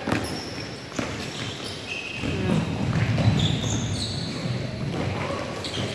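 Basketball dribbled on a hardwood gym floor, a few sharp bounces, with short high squeaks of sneakers on the court and players' voices in a large, echoing hall.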